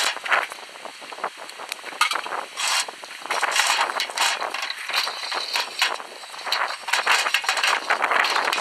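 Metal parts of an American No. 4 bench vise being handled during reassembly, the movable jaw slid into the body, giving rapid irregular clicks, scrapes and rattles.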